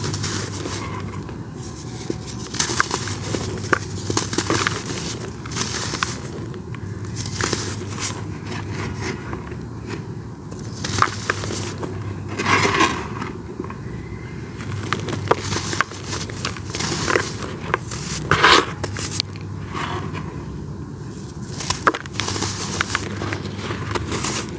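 Dry, crumbly clumps of powdery material crushed and crumbled, steady fine crackling and gritty scraping with louder crunches about halfway through and again later.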